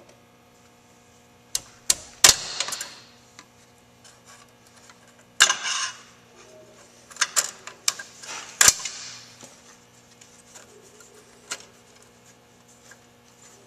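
Sharp metallic snaps and clicks with short rattling scrapes: a tool working at the crimped inner clamp of a rack-and-pinion steering bellows boot, a clamp that is not reusable and has to be damaged to come off. The loudest snaps come about two, five and a half and nine seconds in.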